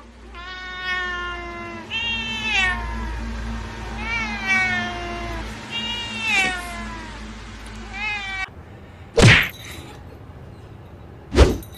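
Domestic cat meowing about five times, long drawn-out meows that bend in pitch. After a cut, two sharp thumps come about two seconds apart.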